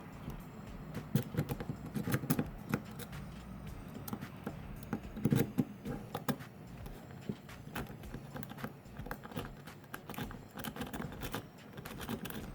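Rake pick scraping in and out of a Eurospec 50mm padlock's keyway, with many quick, irregular metallic clicks as it rocks over the pin tumblers under tension; the lock does not open.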